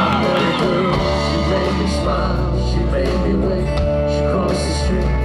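Country-rock music with a steady beat, guitar and a singing voice.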